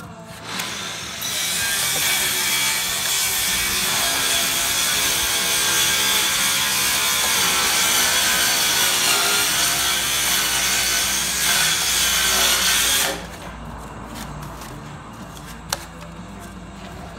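Oscillating multi-tool running steadily as it cuts into the foam insulation core of a SIP panel. It starts about half a second in, comes up to full speed a second later, and stops suddenly after about 13 seconds.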